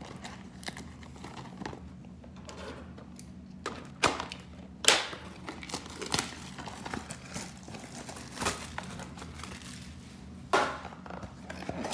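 Packaging being handled as a trading card box is opened: plastic wrap crinkling and small cardboard taps, with a few sharper knocks about four, five and ten seconds in.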